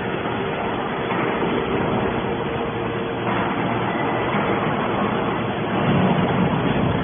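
Steady machinery noise with a constant hum, from a hydraulic scrap baler running.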